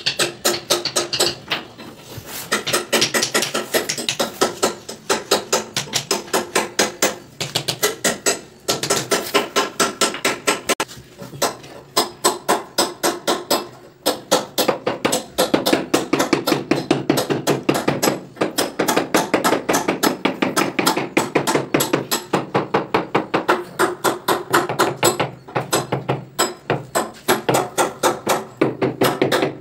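Rapid, steady tapping on granite stone, about five knocks a second, each with a short ring, as pieces are knocked down to bed them in mortar. The tapping stops briefly a few times.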